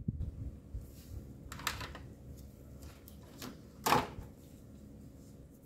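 Workshop handling noises: a short crackle about one and a half seconds in, then a single sharper knock about four seconds in, as parts and tools are handled.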